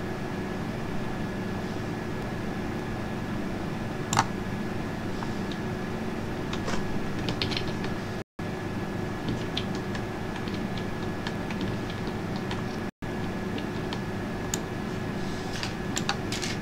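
Scattered clicks of a computer keyboard and mouse, singly and in small clusters with one louder click about four seconds in, over a steady background hum with a faint high whine. The audio cuts out briefly twice.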